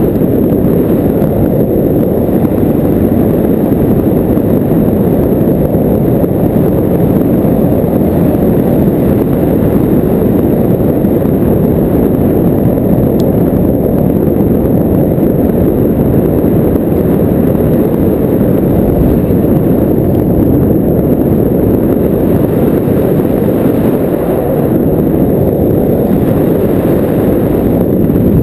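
Loud, steady rush of wind buffeting the camera's microphone as a tandem paraglider glides through the air.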